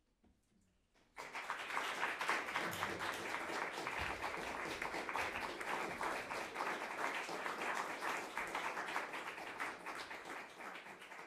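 Audience applause, breaking out suddenly about a second in as dense, steady clapping that begins to thin near the end.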